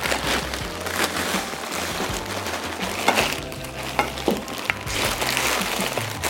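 Thin plastic courier bag rustling and crinkling as it is torn open and products are pulled out of it, with a few light knocks of items being handled.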